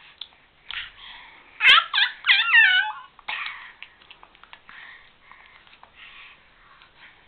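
Baby's high-pitched squealing: a quick run of short squeals about a second and a half in, the pitch swooping up and down, lasting just over a second. Quieter rustling and mouth sounds fill the rest.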